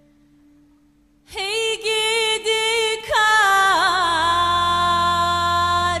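A woman sings a Black Sea Turkish folk song (türkü) over a music track. After a fading low note, her voice comes in about a second in with long held notes bent by ornamental turns, broken by short breaths. A low sustained accompaniment swells in under her about halfway through.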